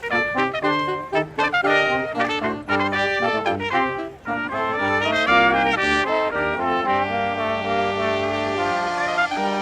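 Brass band playing a Christmas carol, trumpets and trombones over a low bass line. The quick run of notes gives way to a long held chord about two-thirds of the way through.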